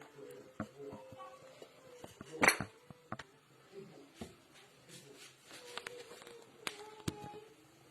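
Kitchen utensils and dishes knocking and clinking, with one louder clatter about two and a half seconds in and two sharp clicks near the end.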